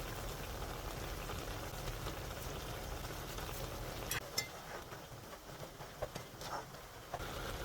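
Pot of crab ramen broth boiling with a steady bubbling hiss, with a few sharp clicks or clinks around the middle and later on.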